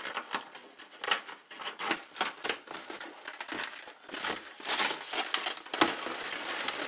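Cardboard packaging scraping and rustling with many irregular small clicks and knocks, as twist ties are undone and a plastic toy part is worked loose from its cardboard insert and lifted out.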